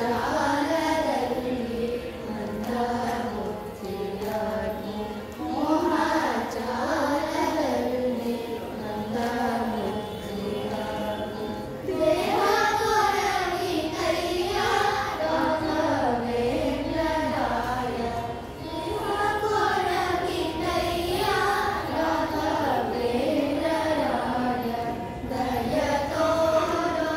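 A group of children singing a song together in unison, in melodic phrases of a few seconds each with brief breaths between them.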